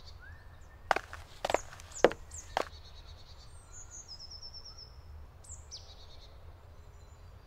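Woodland birds singing, with high falling whistles and a quick trill, over a steady low rumble. Starting about a second in, there are four sharp knocks about half a second apart.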